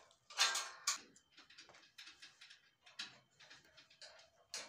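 Small steel parts being handled and fitted against a steel frame: a string of light metallic ticks and taps, with a louder ringing clank about half a second in.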